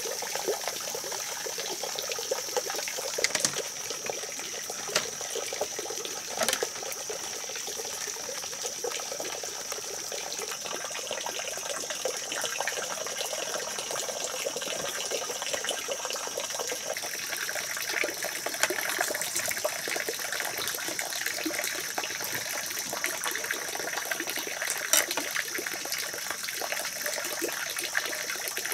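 Steady rush of running water, with a steady high-pitched hum above it and a few sharp clicks.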